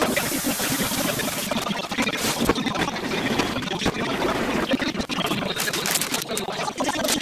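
Steady kitchen background hiss and hum, with scattered clicks and knocks. A bright high hiss drops away about a second and a half in.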